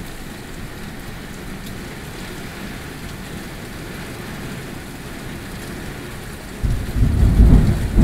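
Steady heavy rain, then a sudden loud rumble of thunder breaks in near the end and keeps rolling.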